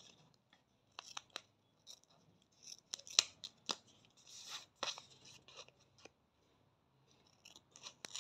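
Small scissors cutting a ready-to-use wax strip: a series of short snips and blade clicks, the sharpest about three seconds in.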